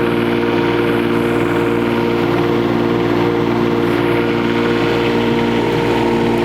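Kubota U10-5 mini excavator's diesel engine running steadily at constant speed.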